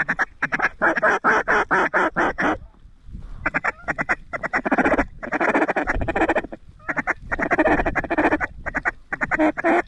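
Rapid, repeated mallard-style quacking close at hand, in runs of a second or two with short breaks, as from duck calls blown hard to turn in a flock working the decoys.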